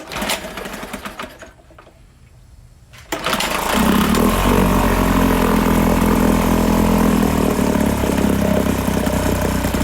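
Small gasoline engine, just reassembled with its head tightened and run on full choke, catches about three seconds in and then keeps running steadily.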